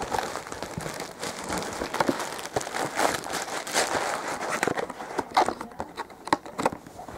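Plastic bag of potty litter crinkling and rustling as it is handled and put away, with irregular small clicks and rattles.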